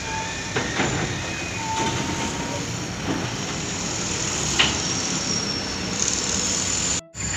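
Steady rumble of port traffic and machinery, with a few scattered knocks and brief faint tones over it. The sound cuts out abruptly about seven seconds in.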